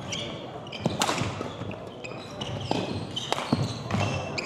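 A badminton rally: rackets strike a shuttlecock in several sharp cracks at irregular intervals, the loudest about a second in. Court shoes squeak in short high chirps and feet thud on the hardwood floor.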